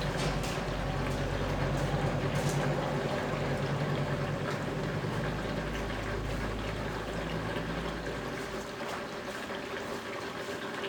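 Brastemp Ative BWG11 washing machine running after being started on a new load, water pouring in as it fills, over a low hum that fades out about eight seconds in.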